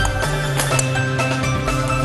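Background music with held notes over a steady bass line. A few light clicks of chopsticks against a stainless steel mixing bowl can be heard through it.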